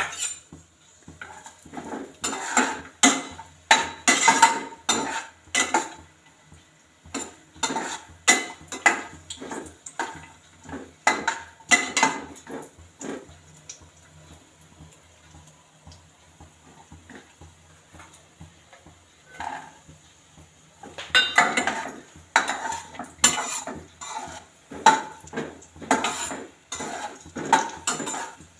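Metal slotted spatula scraping and knocking against a non-stick kadai as nuts and raisins are stirred in ghee. The strokes come in quick runs, with a quieter stretch in the middle.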